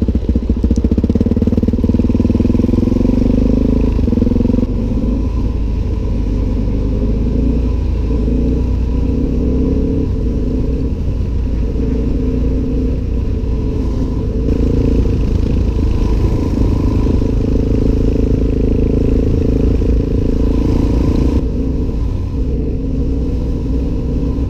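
Suzuki DR-Z400SM supermoto's single-cylinder four-stroke engine running under way, with heavy wind noise on the helmet-mounted microphone. The engine note shifts about four seconds in and again near the end.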